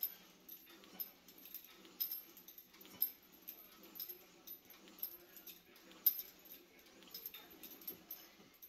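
Cable pulley machine's chain and attachment clinking at a steady rhythm of about once a second during tricep pushdown reps.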